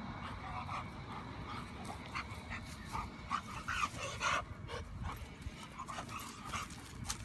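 Harnessed tracking dog panting and whining in short bursts, most of them about three to four and a half seconds in.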